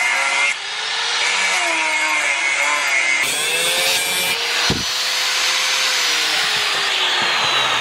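Electric angle grinder with a thin cut-off disc cutting through chainsaw bar steel, a dense grinding noise over the motor's whine. For the first few seconds the whine wavers up and down with the load. From about three seconds in the cut turns harsher and steadier, and the whine slowly drops in pitch as the disc bites into the steel.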